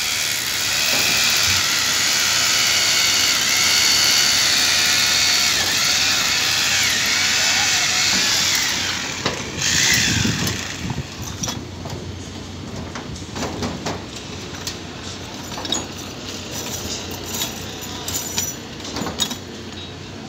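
Electric drill running steadily for about nine seconds, then winding down and stopping; scattered light knocks and clatter follow.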